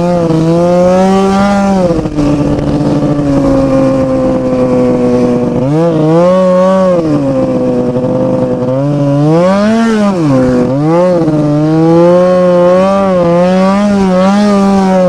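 Ski-Doo MXZ 700 snowmobile's loud two-stroke twin engine under way, heard from the rider's seat. It holds a steady lower note for a few seconds, then revs up and down several times as the throttle is worked.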